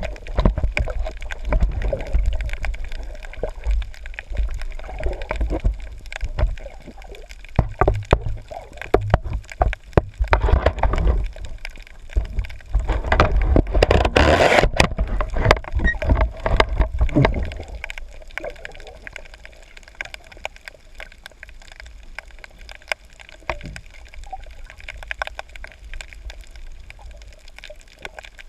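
Water sloshing and gurgling around a GoPro Hero3 camera, with many small clicks throughout. A louder rush builds for a few seconds about halfway through, then the sound eases off for the last third.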